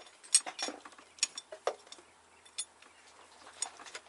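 Bolts and a metal bracket clinking as they are fitted by hand, a handful of light, irregular metallic clicks and taps, the sharpest about a third of a second in, with a quieter spell in the middle.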